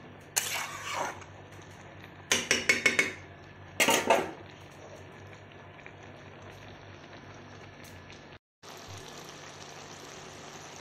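A flat metal spatula scraping and stirring shredded cabbage in a kadai, in three spells of quick scrapes in the first four seconds, then the steady sizzle of the cabbage cooking. The sound cuts out for a moment past the middle.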